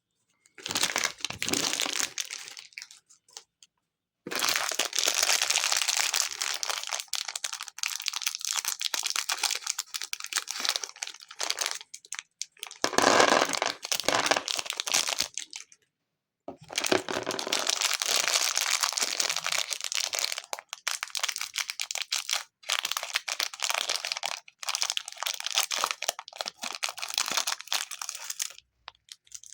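Plastic packaging crinkling and crackling as it is handled and opened, in long spells broken by short silences.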